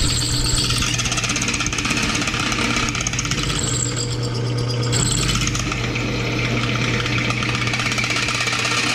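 Drill press running, its high-speed steel bit cutting through eighth-inch steel angle iron: a steady motor hum under a fast, even rattling chatter as the bit chews out large chips.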